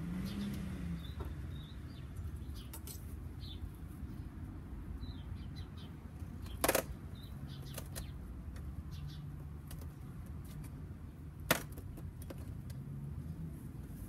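Two sharp wooden knocks from the hive boxes being handled, one about midway and a second later on, over a low steady hum with a few faint bird chirps.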